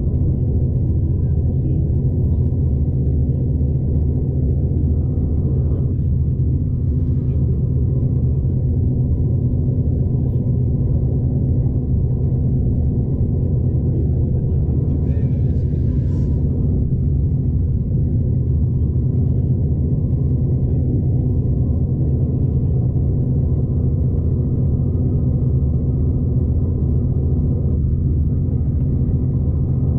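Steady low rumble of a V/Line passenger train under way, heard from inside the carriage.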